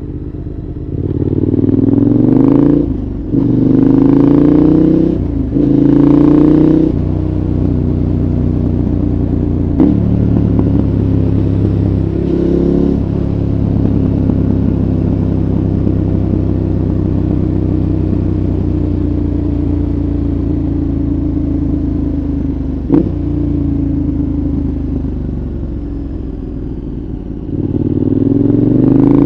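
KTM 1190 Adventure's V-twin engine, breathing through a Giannelli exhaust with its dB killer fitted, accelerating hard through three quick upshifts. It then holds a long, steady note that slowly drops in pitch, and picks up again near the end.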